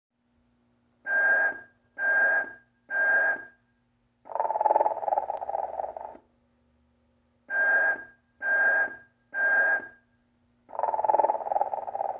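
Battery-operated snoring Santa toy sounding through its small speaker: three short sounds on the same pitch, then a long snore of about two seconds, with the pattern played twice. A faint steady hum runs underneath.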